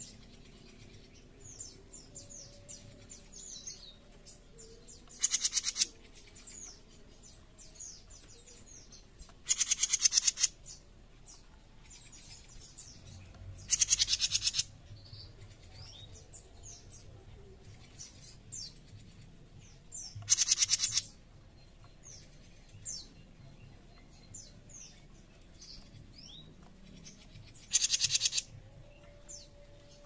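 Caged jenggot mini bird giving five harsh, rasping 'besetan' calls, each about half a second to a second long and several seconds apart, with a fast rattle inside each call. Faint thin high chirps run on between them.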